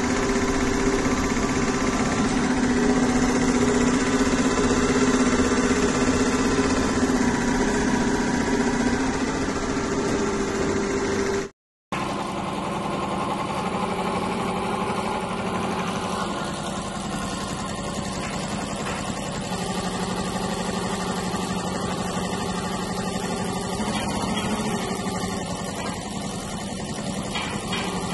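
Multi-needle single-head computerized embroidery machine running at stitching speed: a steady, rapid mechanical running with a constant hum. The sound cuts out for a moment about twelve seconds in, then carries on with a lower hum.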